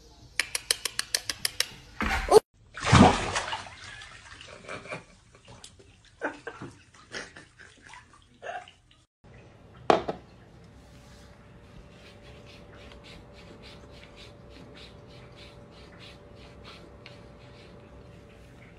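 A quick run of sharp clicks and two loud noisy bursts, then, about ten seconds in, a glass of water knocks down on a wooden floor. A black cat then laps water from the glass in a steady run of soft laps, about three or four a second, over a faint steady hum.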